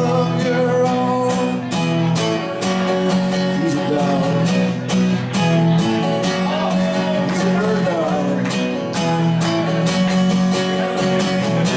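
Acoustic guitar strummed in a steady country rock-and-roll rhythm, with a voice singing over it at times.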